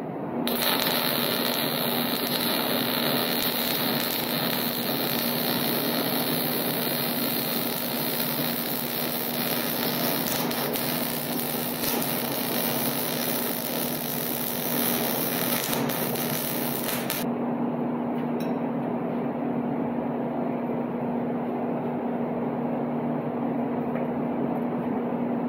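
Wire-feed (MIG) welding arc giving a steady crackling hiss while welding onto a cross-threaded exhaust bolt in a large diesel engine's cylinder head, to free it. The arc starts about half a second in and cuts off sharply about 17 seconds in.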